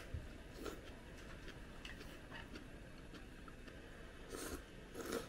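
Faint eating sounds: light clicks of chopsticks against a ceramic bowl, then a couple of short slurps of hotpot food near the end.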